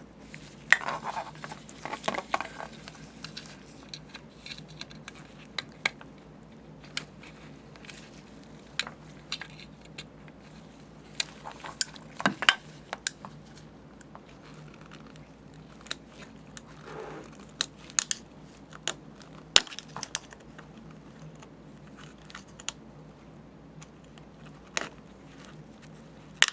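Metal tool prying and scraping at a steel speed nut on a plastic post, with scattered sharp clicks and scrapes as the nut's tabs are bent up to free it. Soft plastic handling sounds between the clicks, over a low steady hum.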